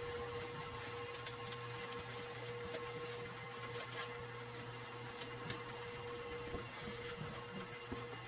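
Plastic stretch wrap and bubble wrap being cut and pulled off a cardboard box: scattered crinkles and scissor snips over a steady low hum.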